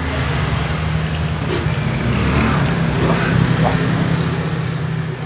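A motor vehicle's engine running close by: a steady low drone over road traffic noise.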